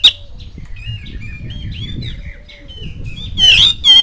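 Oriental magpie-robin singing: soft, quiet twittering for about three seconds, then a loud burst of sharp, sweeping whistled notes near the end.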